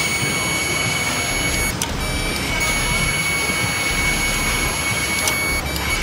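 Electronic parking brake caliper motor whining steadily as it is driven straight from a battery through a power probe, winding the caliper piston back in. The whine cuts out briefly twice, about two seconds in and near the end.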